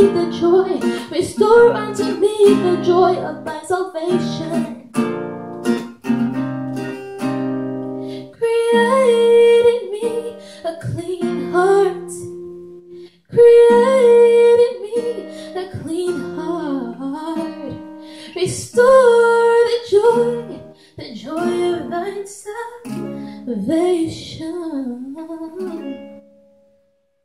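A woman singing a slow Christian pop song to her own strummed acoustic guitar. The music breaks off for a moment about thirteen seconds in and fades out near the end.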